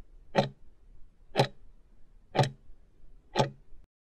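Countdown-timer clock tick sound effect, ticking once a second: four crisp ticks, then it cuts off near the end.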